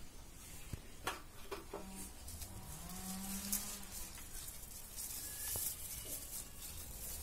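A cow mooing in the background: one low call that rises in pitch and then holds, about two and a half seconds in. Leaves rustle and stems snap as green tomatoes are picked from the plant.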